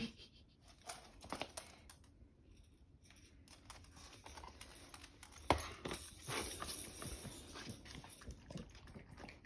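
A pet moving about, making irregular small clicks and rustles, with one sharp knock about five and a half seconds in.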